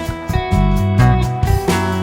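Background music: guitar-led instrumental with plucked and strummed notes over a bass line.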